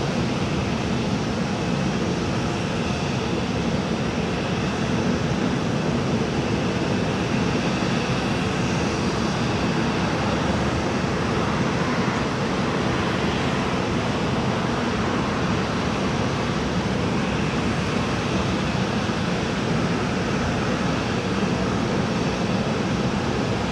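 Boeing 737-700's CFM56-7B turbofan engines running steadily at low power as the airliner rolls slowly into position on the runway: a constant rumble and hiss with a faint whine, no spool-up.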